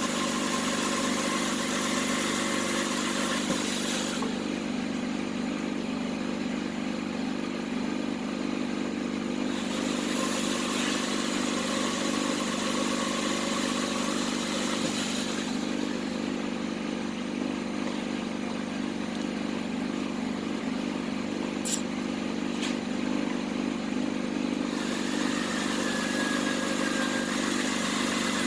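A motor running steadily, with a high hissing noise that comes and goes in stretches of several seconds and a sharp click about 22 seconds in.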